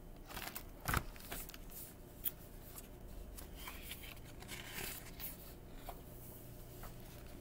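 A hardcover picture book being handled: scattered paper rustles and light clicks, with a sharper knock about a second in.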